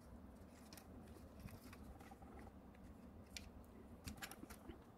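Faint clicks and taps of plastic and metal parts of a Snapmaker 2.0 3D printing module being handled and fitted together, with a small cluster of clicks near the end.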